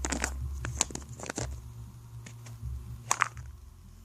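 Hands handling and working open a plastic surprise egg: scattered light taps and clicks of plastic, with a sharper click about three seconds in.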